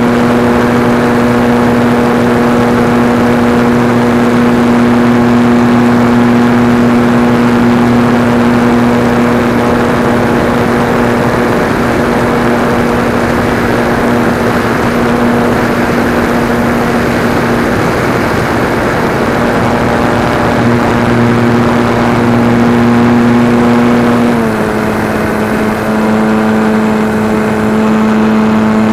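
SIG Senior RC model airplane's motor and propeller, heard from on board, running at a steady pitch with wind rush. About 24 s in, the pitch drops slightly and holds there.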